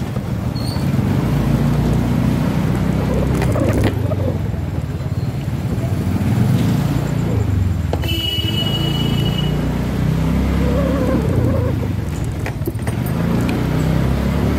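Engine and road rumble of a car driving slowly, heard from inside the cabin. A brief high tone sounds about eight seconds in.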